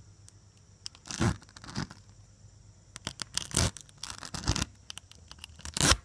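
Tyre plug kit's spiral reamer being rammed in and out of a puncture in a car tyre's rubber tread, giving about five rough rasping scrapes: the hole being cleaned out and roughened before a plug strip goes in.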